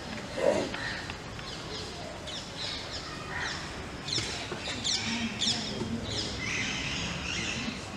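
Birds chirping, a steady run of short, quick falling chirps, over a background hum of outdoor noise.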